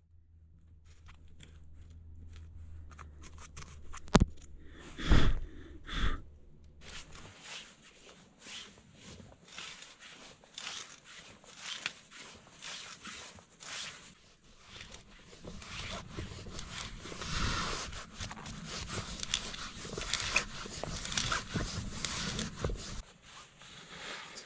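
Hand auger bit crunching and scraping as it is twisted by hand into the end of a small log, boring out wood chips in uneven strokes that grow busier in the second half. Three loud knocks come about four to six seconds in.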